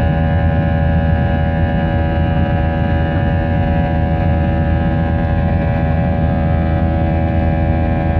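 Airbus A321 engine noise heard inside the cabin: a steady, loud drone of several held tones over a deep rumble. This is the engine noise the uploader points out.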